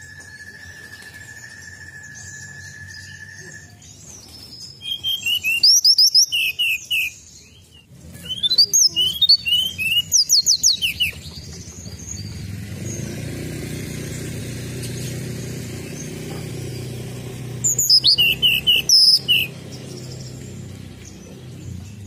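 Caged tledekan gunung, a blue-and-orange songbird, singing in three loud bursts of rapid, high chirping notes: one about five seconds in, a longer one from about eight to eleven seconds, and a short one near the end. A steady thin high tone runs through the first few seconds, and a low rumble is heard in the middle and later part.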